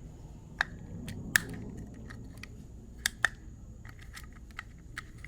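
Sharp plastic clicks and snaps as the tabs of a start-capacitor relay's plastic case are pried at by hand: four louder clicks in the first few seconds, then fainter ticks, over a low steady hum.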